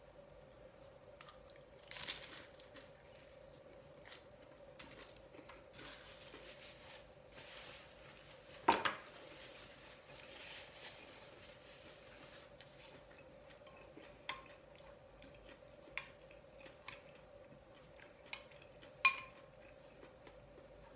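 Metal spoon clinking against ceramic bowls and plates while eating, with scattered small clicks and quiet chewing of a fried spring roll. The loudest clink comes near the end and rings briefly. A faint steady hum sits underneath.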